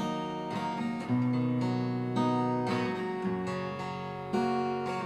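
Acoustic guitar playing a chord accompaniment that mixes fingerpicked notes with strums. The bass note changes with each chord, roughly every second and a half.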